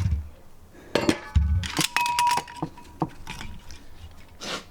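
Metal clinking and knocking as the new clutch disc and a caliper are handled, with one short ringing clink about two seconds in.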